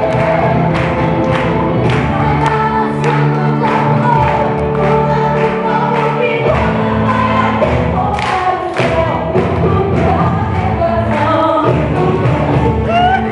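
Gospel worship music: a choir singing over a band with regular drum hits.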